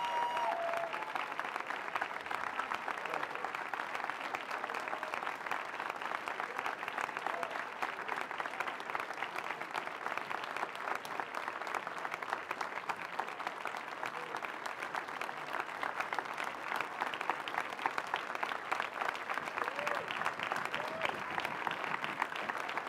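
Large crowd applauding steadily, a dense patter of many hands clapping, with a few scattered voices calling out.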